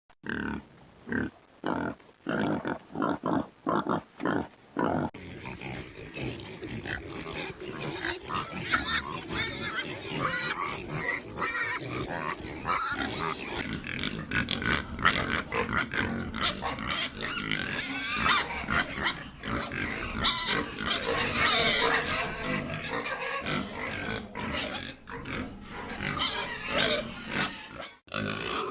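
Domestic pigs. About ten separate short grunts come in the first five seconds. Then many pigs call over one another in a dense, continuous din.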